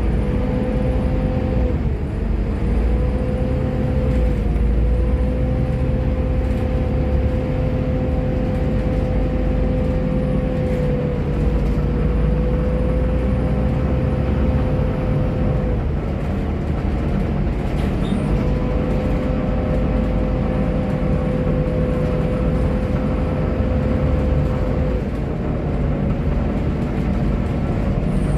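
Volvo B7TL double-decker bus heard from inside while running at road speed: a steady low engine rumble under a constant drivetrain whine. The whine drops out briefly past halfway and comes back a couple of seconds later.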